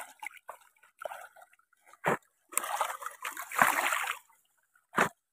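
Water sloshing and splashing in uneven bursts, with two sharper splashes, one about two seconds in and one near the end.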